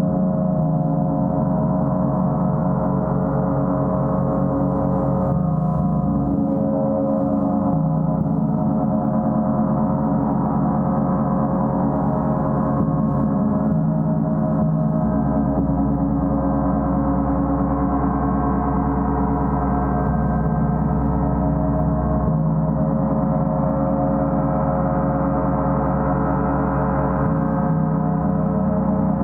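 Gong played in a continuous, sustained wash: many overlapping tones ringing steadily with no gap between strikes.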